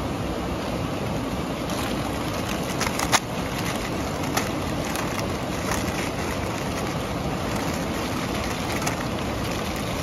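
Plastic instant-noodle packets crinkling and tearing as they are opened and emptied into a cooking pot, with a sharp crackle about three seconds in, over a steady rushing noise.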